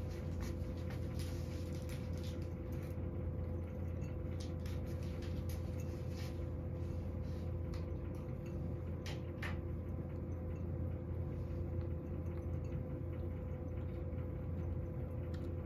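A cat eating from a ceramic bowl: irregular small clicks and smacks of chewing, thickest in the first several seconds and sparser later, over a steady low electrical hum.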